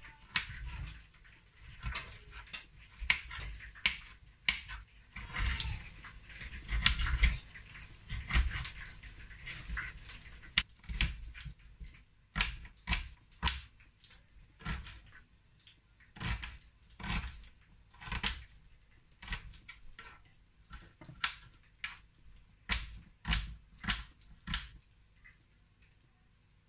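Kitchen knife chopping tomatoes and then an onion on a wooden cutting board: sharp knocks of the blade striking the board, closer together early on, then an even chopping of about two a second.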